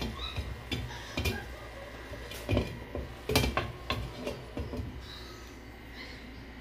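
A glass pan lid clinking and knocking against a frying pan as it is handled and set in place, a string of irregular light knocks, the loudest about two and a half and three and a half seconds in.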